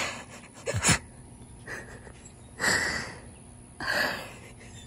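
A person sniffing and breathing hard in several short breathy bursts, as in crying.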